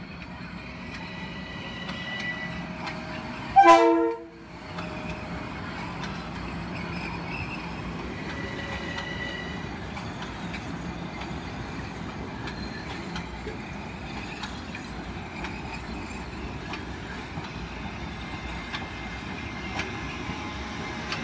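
Metro-North electric multiple-unit commuter train rolling past. It gives one short horn blast about four seconds in, the loudest sound, then its cars keep rolling steadily over the rails with faint high wheel squeal at times.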